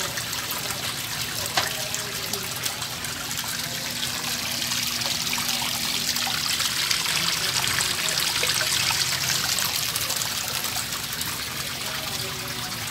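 Water churning and splashing in a live-fish holding tank, stirred by an aerating jet, growing louder through the middle. A faint steady low hum runs beneath it.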